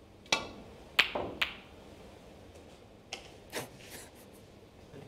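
Snooker balls being struck: the cue hitting the cue ball and the resin balls clicking against each other and the cushions. Three sharp clicks come in the first second and a half, the loudest about a second in, then a few fainter knocks around three to four seconds in.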